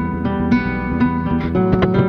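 Background music led by plucked guitar, with a steady run of notes over a bass line.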